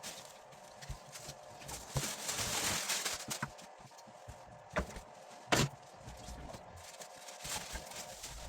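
Small hard parts being handled and set down on a work surface: scattered knocks and clicks, a scraping noise lasting about a second about two seconds in, and two sharper knocks around five seconds in.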